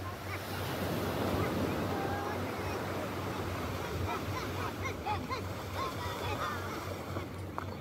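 Sea surf breaking and washing up a sandy beach, with the scattered calls of a group of fishermen working together.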